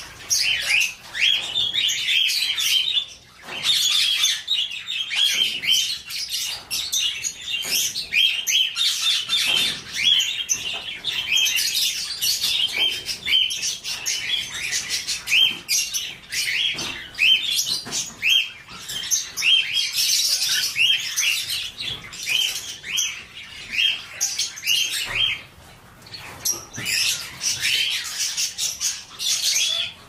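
A flock of small aviary birds (budgies, lovebirds and finches) chirping and chattering, many short overlapping calls in a continuous stream that thins briefly near the end.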